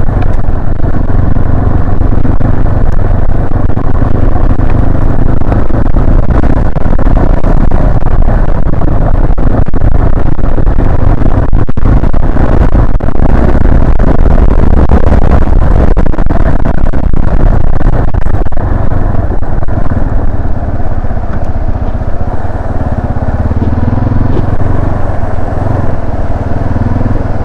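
Carbureted Yamaha Serow 250's single-cylinder engine running steadily as the bike is ridden at an easy pace.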